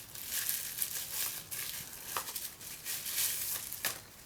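Rustling and crinkling of product packaging as an eyeshadow palette is taken out of its box, with a couple of light clicks, one about two seconds in and one near the end.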